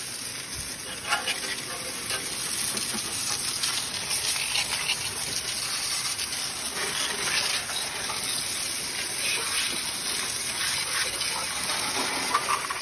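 Garden hose spray nozzle shooting a jet of water onto a car's engine bay: a steady hiss of spray spattering off the engine and surrounding parts.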